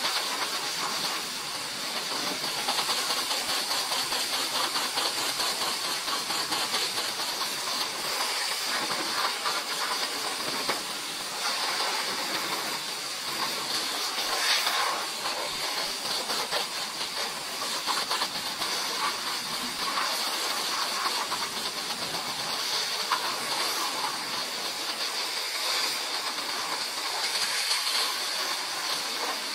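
High-pressure water jet from a pressure-washer lance spraying against a car's body panels: a steady hiss of spray that goes on without a break.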